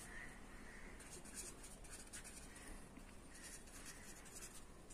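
Faint scratching of a marker pen writing on paper, in a run of short, irregular strokes.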